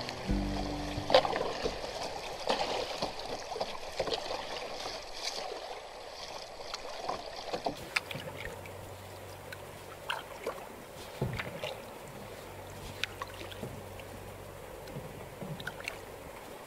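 Water splashing and lapping around a plastic kayak as it is paddled, with many short splashes and drips from the strokes. After about eight seconds it turns quieter, with only scattered drips and clicks.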